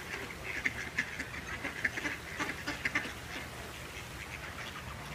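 A flock of mallard ducks quacking, many short calls overlapping, busiest in the first three seconds and thinning out after.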